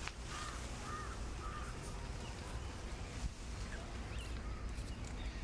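Outdoor ambience with three short arching animal calls in the first second and a half, then a few faint chirps, over a low steady rumble.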